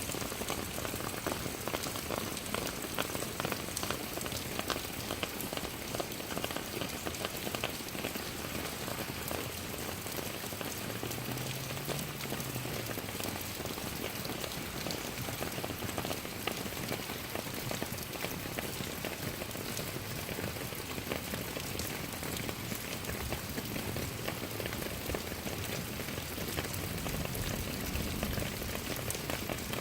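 Steady rain falling, a dense even hiss full of small drop patters.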